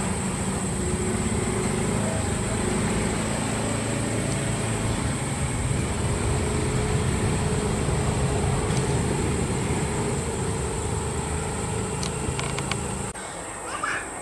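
Airbus A320-200 jet engines running as the airliner touches down and rolls out along the runway: a loud, steady rush with low engine tones. It cuts off abruptly about a second before the end, leaving quieter background.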